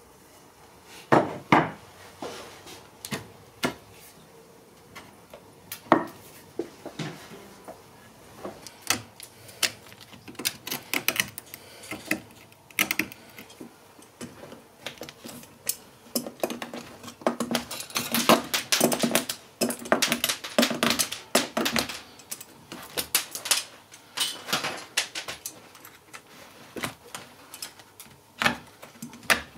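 Tacks and decorative nails being pried out of a wooden armchair frame with metal hand tools while the old upholstery is stripped: a run of irregular sharp clicks, taps and clinks, coming thicker in the second half.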